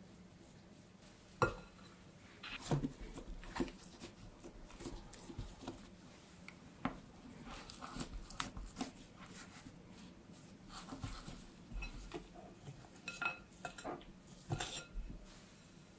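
A spoon stirring crumbly cookie dough in a glass mixing bowl, giving irregular clinks, knocks and scrapes against the bowl.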